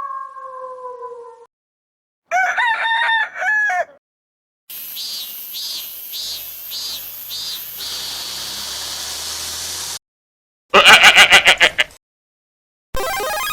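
A run of short sound-effect clips with silent gaps between them; among them is a rooster crowing.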